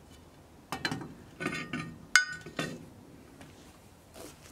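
Clinks and clanks of cast-iron Dutch oven parts being handled: a few short metal knocks, then a sharp ringing clink about two seconds in and another knock, with a faint tap near the end.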